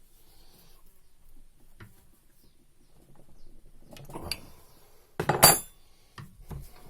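Small metal parts and tools clinking and clattering on a work surface as a common rail diesel injector is handled during reassembly, with scattered light clicks and one loud metallic clatter about five seconds in.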